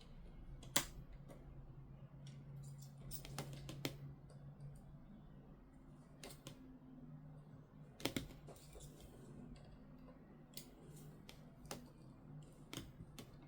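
Scattered faint clicks and taps of small laptop parts and tools being handled during disassembly, over a faint steady low hum.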